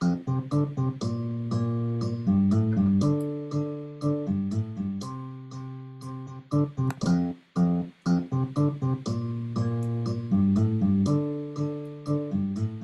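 Steel-string guitar playing a chord progression of strummed F, B-flat, D minor and C chords and a short single-note riff, at a steady, even tempo.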